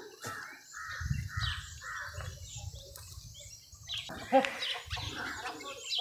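Birds calling outdoors: a run of about five short chirps in the first two seconds, with a low rumble underneath and another brief pitched call about four and a half seconds in.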